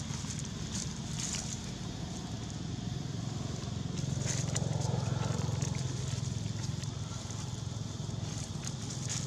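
Dry leaf litter crackling lightly under a macaque's steps, over a steady low rumble that swells about four to six seconds in.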